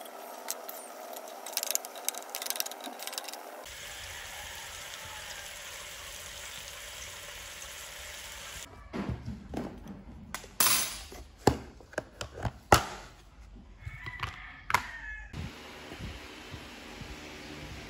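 Food frying in a nonstick wok: diced mixed vegetables stirred with a spatula, with light scraping clicks, then pieces of meat sizzling in oil with an even hiss. About halfway through, a run of sharp clacks and knocks follows, from a plastic lunch container being handled.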